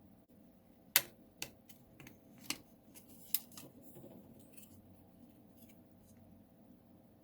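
A series of short, sharp clicks and taps of small hard objects being handled, four louder ones within the first three and a half seconds and fainter ticks after, over a faint steady hum.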